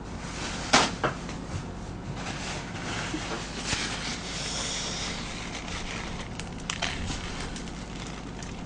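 Paper towels torn off a roll and handled: a sharp rip near the start, then paper rustling and crinkling for a second or two in the middle, with a few more short crinkles later.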